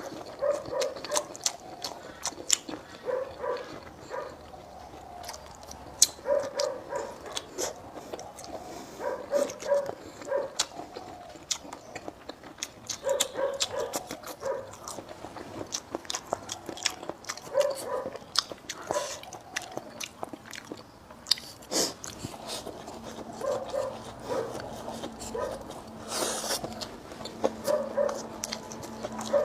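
A person eating up close: crisp bites and chewing of crunchy food, each bite a sharp crunch. Between them, short pitched calls sound in groups of two to four every few seconds.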